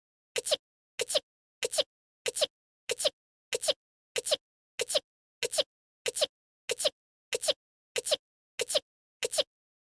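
A short voice-acted anime sneeze, the same clip repeated over and over, about one and a half sneezes a second with silence between.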